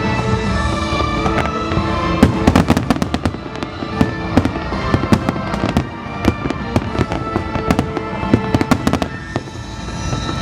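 Fireworks bursting and crackling in rapid volleys, densest about two to three seconds in, over music playing throughout.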